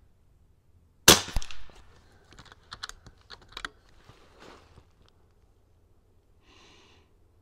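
A single shot from a .22 Niksan Tacto-S PCP air rifle: a sharp, loud crack about a second in, followed by a run of quick metallic clicks as the action is worked for the next pellet.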